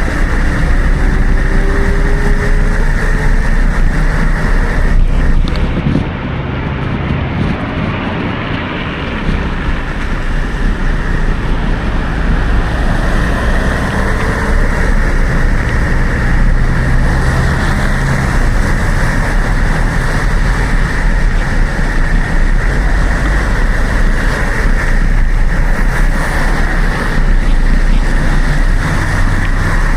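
Wind rushing over an action camera's microphone on a moving bicycle, mixed with traffic and road noise. It eases for a few seconds about six seconds in.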